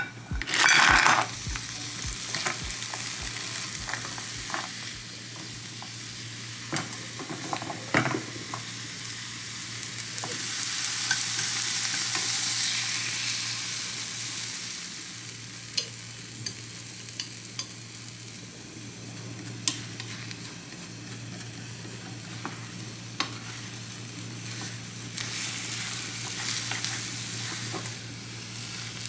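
Shrimp, asparagus and beaten egg frying in oil in a small nonstick pan on a gas burner: a steady sizzle, with a loud burst of sizzling right at the start as the shrimp go into the hot oil. The sizzle swells for a few seconds around the middle. Chopsticks tap and scrape against the pan now and then as the food is stirred and scrambled.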